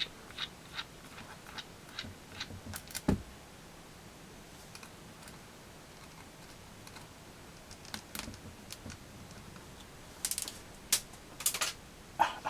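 Scattered light clicks and taps of a small screwdriver and tiny screws being worked out of the front of a netbook's screen assembly, with a run of sharper clicks near the end.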